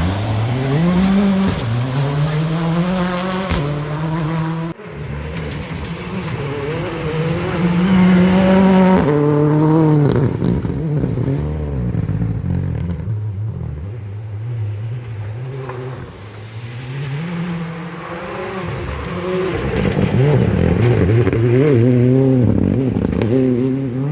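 Proton IRIZ R5 rally car's turbocharged four-cylinder engine revving hard at speed, its pitch climbing and dropping again and again through gear changes and lifts, with a sudden cut to another pass about five seconds in.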